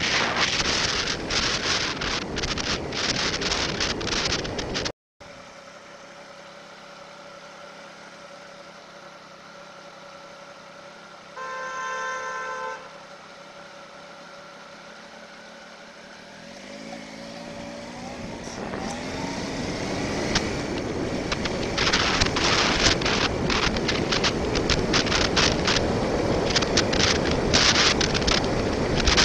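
Wind buffeting a motorcycle helmet camera at riding speed, cutting off abruptly about five seconds in. Then a motorcycle engine idling quietly, a vehicle horn sounding once for about a second midway, then the engine revving up through the gears as the bike pulls away while the wind noise builds with speed.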